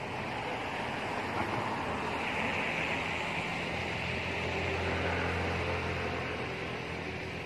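Steady low engine hum of a motor vehicle, growing stronger about halfway through, under a continuous outdoor hiss that swells in the middle.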